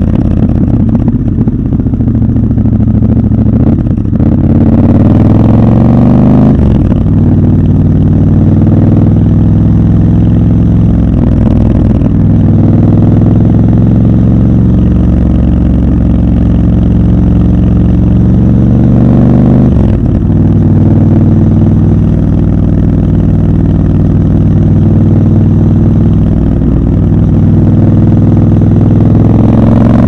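Triumph Scrambler 1200 XC's parallel-twin engine under way, recorded from the rider's seat. Its pitch climbs and then drops sharply about six seconds in and again near twenty seconds, the rise and fall of gear changes, and holds steady at cruising revs in between.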